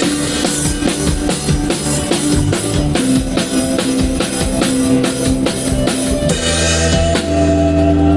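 A live band playing during a sound check, with a busy drum kit (kick and snare hits) under held pitched notes. About six and a half seconds in, a deep sustained bass note comes in along with a cymbal wash.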